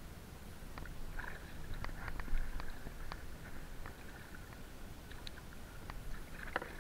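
Irregular light clicks and taps of a spinning rod, reel and kayak gear while a hooked bream is played in, with a sharper knock about two and a half seconds in.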